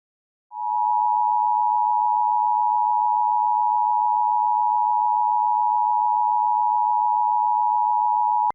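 Emergency Alert System attention tone: one steady electronic tone just under 1 kHz, held for about eight seconds before cutting off abruptly with a click.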